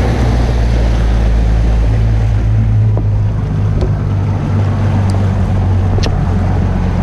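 Outboard motor running steadily as the boat moves under way, with water rushing along the hull and wind on the microphone.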